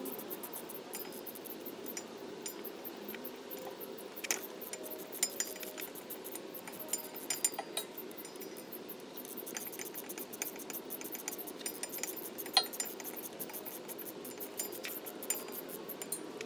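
An 8 mm wrench working the U-joint strap bolts at the rear differential yoke as they are loosened: light, irregular metallic clicks and clinks, with a few sharper ticks.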